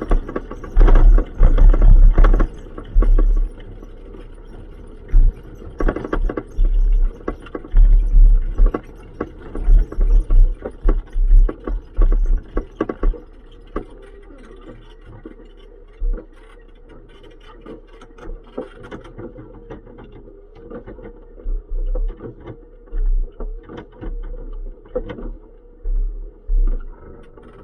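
A car driving, its engine running with a wavering pitch, under repeated heavy, irregular low thumps that come thickest in the first half and again near the end.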